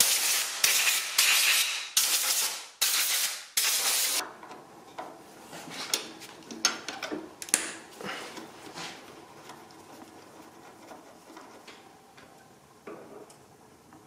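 Short blasts of compressed air from a blow gun, about six in the first four seconds, blowing sawdust out of the planer's chain and gear drive. After that, faint clicks and scrapes of small steel hand tools against the metal housing.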